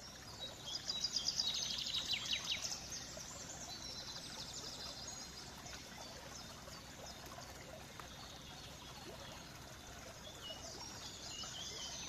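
A small woodland stream trickling and babbling. Over it a songbird sings a fast run of high notes in the first few seconds, with fainter bird calls after.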